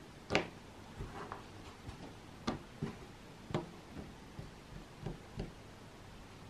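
Light, irregular taps and knocks on a wooden cutting board as the cut-off ends of oranges are set down and handled, the sharpest about half a second, two and a half and three and a half seconds in.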